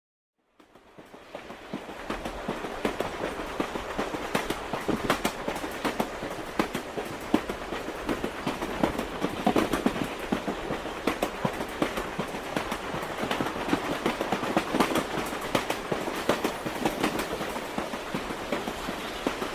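Train running along the track, steady rumble with irregular clicks and knocks from the wheels on the rails; it fades in over the first couple of seconds.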